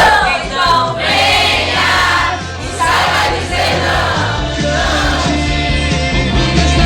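Loud gospel-style music with group voices singing; a heavier bass beat comes in about four seconds in.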